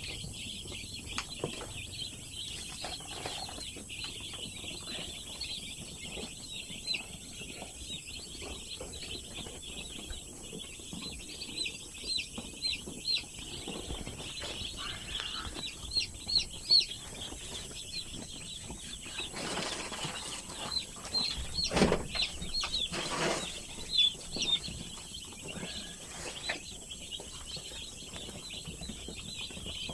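A large flock of chickens in a poultry house, mostly chicks giving a continuous chorus of high peeping. A few louder rustling bursts come about two-thirds of the way through.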